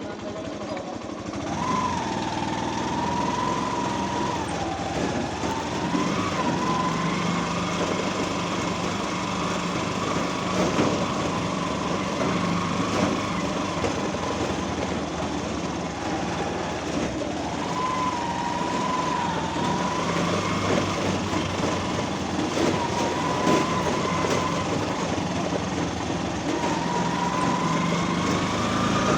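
A motor vehicle's engine running steadily, with a whine that wavers up and down in pitch.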